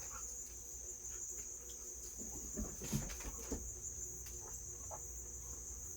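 A steady high-pitched drone like crickets, with a few faint taps and scrapes of a ruler being lined up on the workpiece about halfway through.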